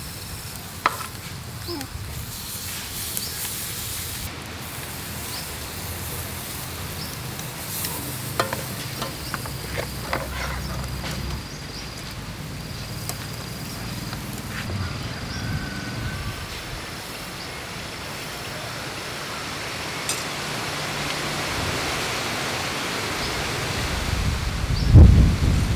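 Pork ribs sizzling on a wire grill over a charcoal fire: a steady hiss with a few light clicks, swelling in the last few seconds, and one loud low thump near the end.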